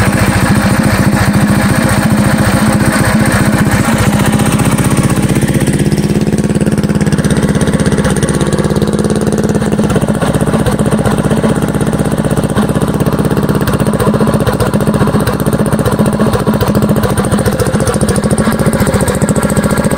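Stage 3 Predator 212 single-cylinder engine on a Coleman CT100U minibike idling steadily with a loud, even, fast firing beat.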